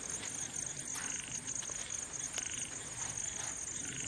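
Crickets trilling steadily, with a second, lower chirping call pulsing about once a second.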